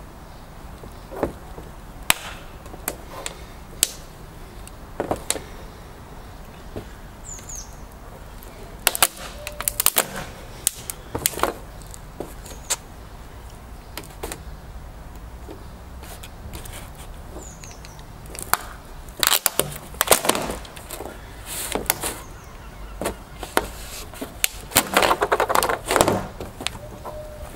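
Riding boot heels and soles stepping and pressing down on a flat bar with small round pieces fixed to it, on a plywood board: scattered sharp clicks and cracks, with bursts of crackling and scraping as pieces snap off and skitter across the wood, the biggest clusters about nine seconds in, around twenty seconds and near the end.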